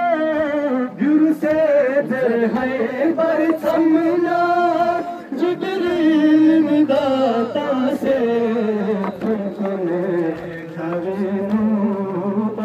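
A male voice chanting a noha, a mourning lament, in long, slowly wavering held notes, with a few sharp knocks scattered through it.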